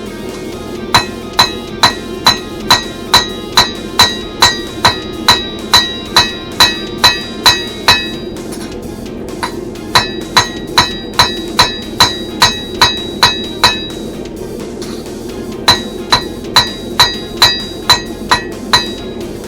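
Blacksmith's hammer striking hot steel on an anvil, each blow ringing clearly. The blows come at about two a second in three runs, with a pause about a third of the way through and another about two-thirds through. Under the blows runs the steady roar of the forge fire.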